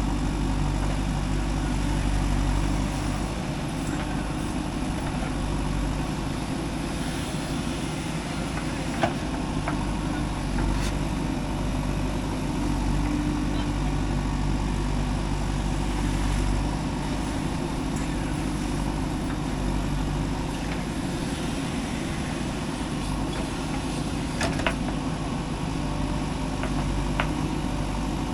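Diesel engine of a JCB 3DX backhoe loader running steadily while it loads mud into a dump truck. A few short, sharp knocks stand out over the engine noise.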